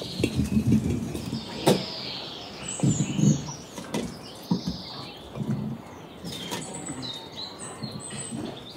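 Birds chirping and singing in the background, with irregular knocks, clicks and clatter of things being handled.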